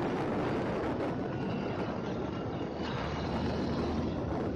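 Motorcycle on the move: wind rushing over the microphone, with the engine running underneath at a steady speed.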